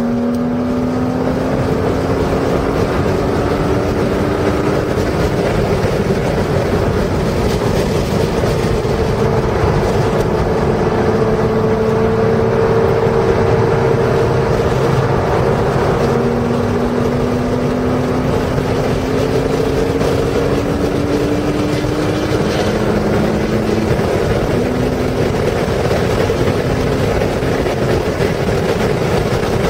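Porsche's engine heard from inside the cabin at racing speed over steady road and wind noise, its pitch climbing under hard acceleration and dropping back at an upshift about 23 seconds in.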